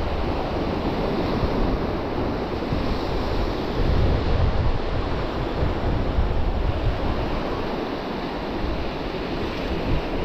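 Surf breaking steadily on the shore, with wind buffeting the microphone in low rumbling gusts.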